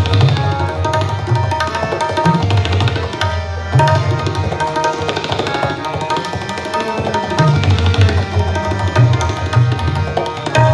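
Two tabla sets played together in a fast duet: rapid ringing strokes on the tuned treble drums (dayan) over deep bass strokes from the bayan that come in stretches.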